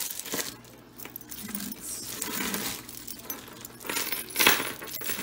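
Costume jewelry jangling and clinking as a long belt hung with charms is handled and drawn out of the jewelry lot, with a louder cluster of clinks about four seconds in.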